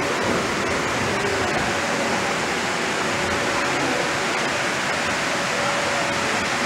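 Steady rushing noise of water and air circulating in an aquaculture greenhouse's fish tanks, with a faint steady hum.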